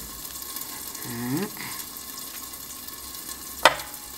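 Steady sizzle of chopped tofu frying in hot oil in a pan, with one sharp click of a knife near the end.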